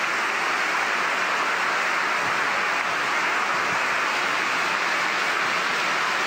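Large audience applauding: dense, steady clapping that holds at one level throughout.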